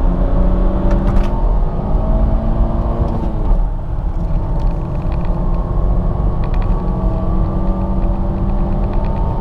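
Car engine pulling hard under full acceleration, heard from inside the car. Its pitch climbs steadily, dips briefly about three and a half seconds in, then climbs again.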